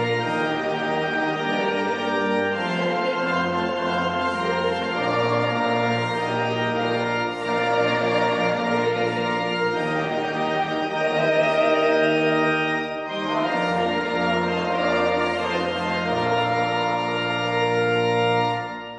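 Church organ playing sustained hymn chords, with the bass notes changing every second or two. The music briefly drops away near the end, at the close of a phrase.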